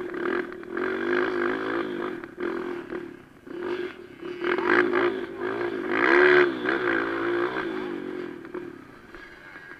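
Kawasaki KLX150 dirt bike's single-cylinder four-stroke engine revving up and down as it is ridden around a dirt motocross track, heard close from the bike itself. The revs peak about six seconds in, and the engine note drops away near the end.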